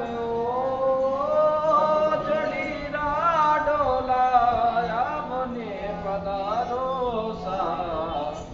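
A man singing a Rajasthani folk melody in long sliding phrases, accompanied by a ravanahatha, a bowed folk fiddle; a low steady drone note joins about halfway through.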